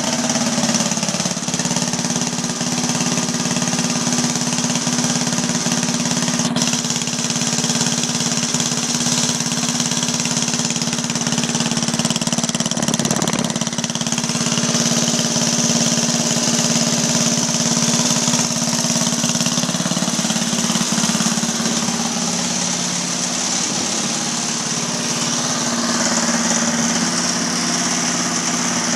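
8 hp Briggs & Stratton single-cylinder engine running steadily, with a brief change in its sound about halfway through.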